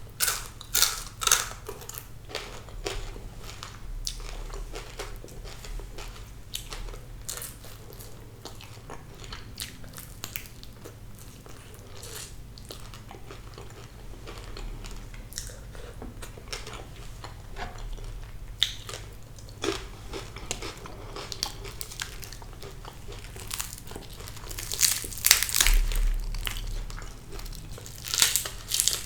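Close-miked chewing and crunching while eating fried sea bass, many small crisp bites and mouth sounds, with louder bursts of crunching about a second in and again near the end.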